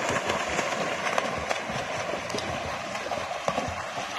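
Several children kicking and splashing as they swim across a pool: continuous churning water with many irregular slaps of hands and feet on the surface.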